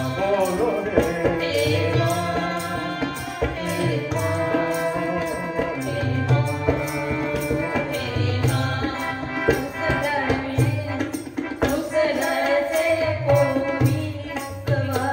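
Hindi devotional song (bhajan) with a voice singing over a steady drum beat.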